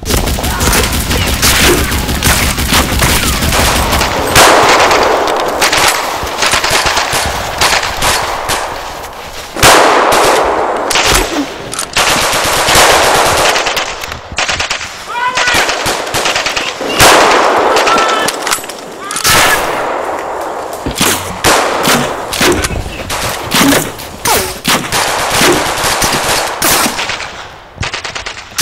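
Heavy gunfire: rapid automatic bursts mixed with rifle shots, near continuous with a few short lulls.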